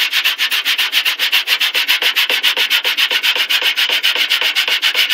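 Balled-up aluminium foil scrubbed hard over a baking soda and hydrogen peroxide paste on a stained metal cookie sheet, in quick, even back-and-forth scraping strokes, several a second, to lift baked-on grime.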